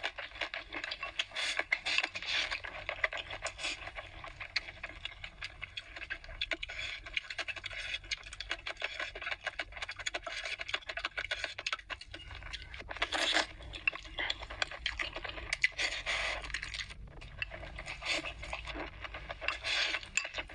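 Noodles slurped and chewed, with many small wet clicks and smacks and a few louder slurps partway through.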